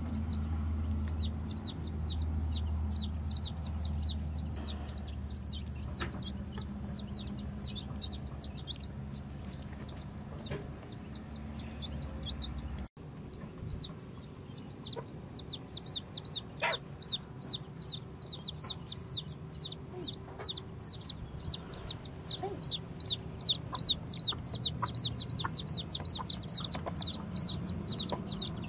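Newborn chicks peeping together, a rapid unbroken stream of high, falling cheeps. A low hum runs under the first half and cuts off abruptly about halfway through.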